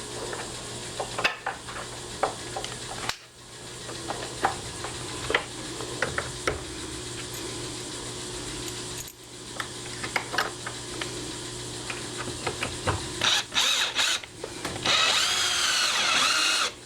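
Electric drill/driver running in stretches to drive screws into a deadbolt plate on a door, with small clicks and knocks of the screws and hardware. There is a louder, higher-pitched stretch near the end.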